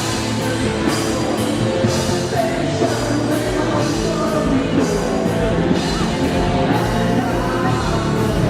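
Loud rock music with a singing voice and a steady beat.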